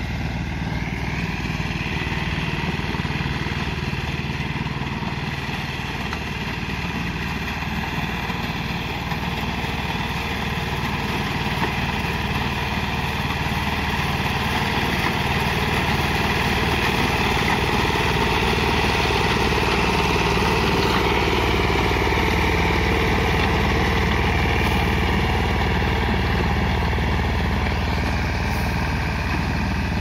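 Greaves 10 HP engine of a BCS three-wheel reaper binder running steadily under load while the machine cuts wheat.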